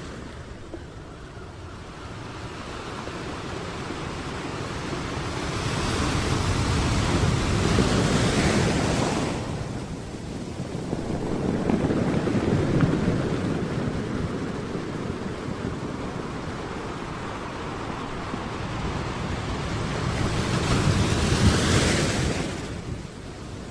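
Sea waves breaking on the shore, with wind on the microphone. The surf swells and fades in long rushes: two big waves crash, about a third of the way in and near the end, each building for a few seconds and then dying away, with a smaller surge between them.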